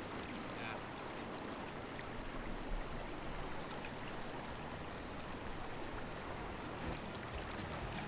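Steady rushing of a river's running water.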